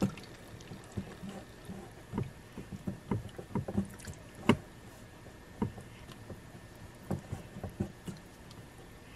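A silicone spatula stirring a thick condensed-soup mixture in a stainless steel bowl: irregular wet slopping, with the spatula scraping and knocking against the bowl's side every second or so.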